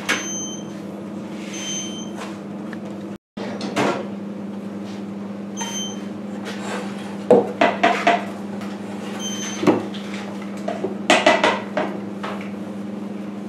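Scattered wooden knocks and clatter as a wooden pasta chitarra is handled on a steel worktop: an egg-pasta sheet is laid on its strings and pressed through with a rolling pin to cut tagliolini. A cluster of knocks comes near the end, over a steady low kitchen hum.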